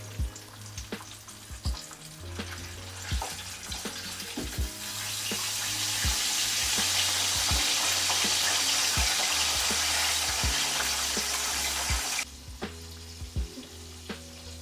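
Chicken frying in hot oil, a steady sizzle with frequent small clicks and knocks. About five seconds in the sizzle swells much louder, then cuts off suddenly near the end. Faint background music plays underneath.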